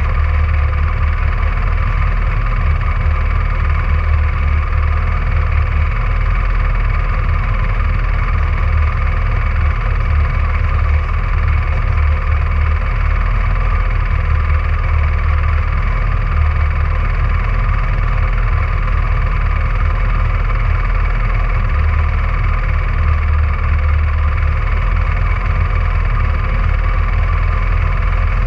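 Rally car engine running steadily at an even pitch, with no revving.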